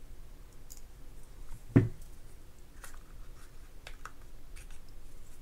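Light clicks and taps of a small plastic spinning reel and hand tools being handled on a bench, with one louder knock about two seconds in. This is a Shakespeare GX230 reel having its side cover worked off during a strip-down.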